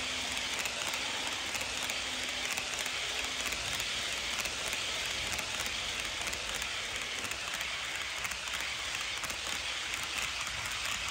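HO scale freight cars rolling past on sectional track: a steady clatter of metal wheels on the rails with rapid clicking over the rail joints. A faint hum from the locomotives' motors fades out in the first few seconds.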